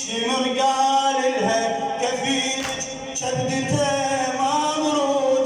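Mournful music from a latmiyya mourning chant: a sustained, slowly gliding melody with no sung words.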